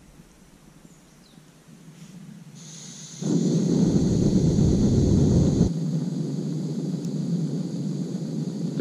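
Portable gas canister camping stove being lit: a hiss of gas, then about three seconds in the burner comes on loudly. It drops suddenly after a couple of seconds to a quieter, steady burn.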